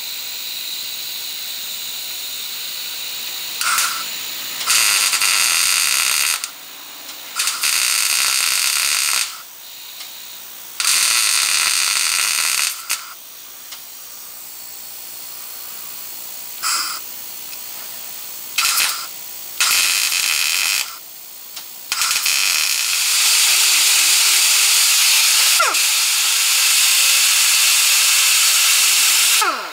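MIG welder crackling and buzzing in a series of one-to-two-second bursts with short pauses between, then a few brief tacks: overhead welding of cracks in a car's front shock mount. From about 22 seconds in, a handheld grinder runs steadily against the metal.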